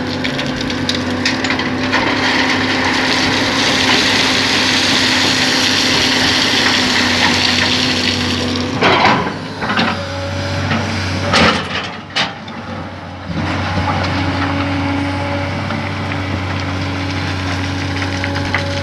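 Excavator's diesel engine running steadily while the bucket scrapes and crunches through sand, with a few sharp knocks about halfway through.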